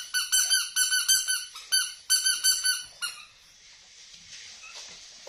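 A toy squeaker sounding in a quick run of short, high-pitched squeaky toots, about four a second, which stop about three seconds in.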